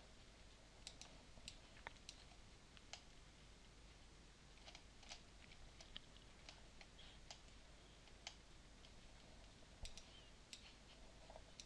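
Near silence with faint computer mouse clicks, about a dozen at uneven intervals.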